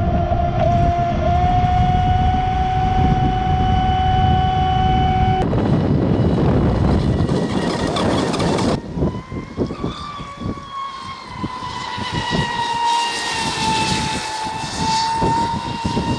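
Electric motor of a Traxxas Spartan RC speed boat whining at a steady high pitch at full throttle over rushing water and spray. The whine cuts off suddenly about five seconds in, leaving only a loud water rush; near the middle a higher motor whine returns, wavering slightly in pitch, with scattered splashy clicks.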